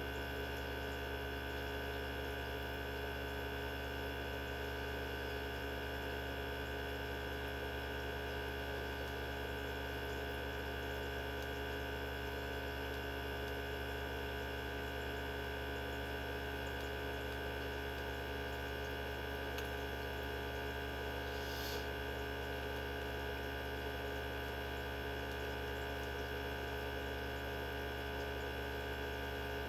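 Mini benchtop centrifuge running at a steady speed, its motor giving a steady hum with several fixed tones as it spins tubes of blood to separate them. A brief faint click about three-quarters of the way through.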